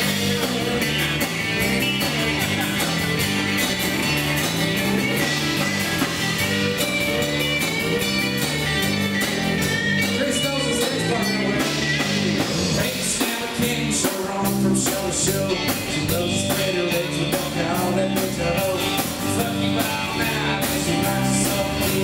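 Live country rock band playing an instrumental break between verses: electric guitar lead lines over bass, drum kit and strummed acoustic guitar. The drumming gets busier with more cymbal hits about halfway through.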